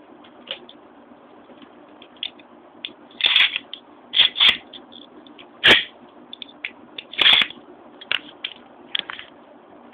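Irregular sharp clicks and knocks over a faint steady hum, with a few louder knocks from about three seconds in, from a metal Beyblade spinning on a tiled floor. A hand picks it up near the end.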